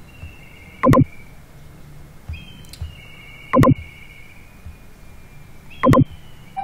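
Three loud, short clicks from a computer mouse, spaced about two to three seconds apart, as copies of a sketch are placed point by point in CAD software. A faint low hum runs underneath.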